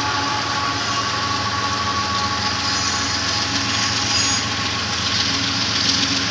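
Union Pacific intermodal freight train rolling past with a steady rumble of locomotives and cars. A faint high wheel squeal comes through about halfway in.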